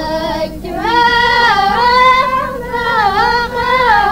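Women's voices singing an Amazigh ahwach song: long, high held notes that bend up and down, with a short break about half a second in.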